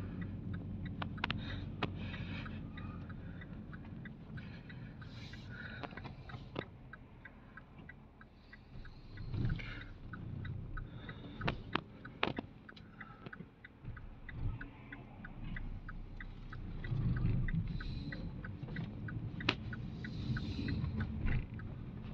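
Cabin noise inside a Vauxhall Vectra taxi on the move: a steady low engine and road rumble. A long run of quick, evenly spaced ticks sounds through the middle, and a few sharp knocks stand out.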